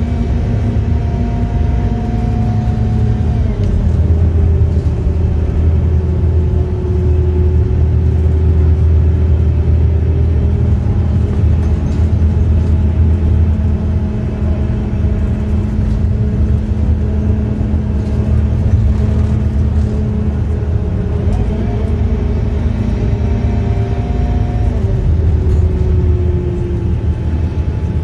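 Scania K230UB bus driving, heard from inside the passenger cabin: its rear-mounted five-cylinder diesel runs under load with a steady low drone. The engine pitch rises and then drops sharply several times as the bus picks up speed and changes gear.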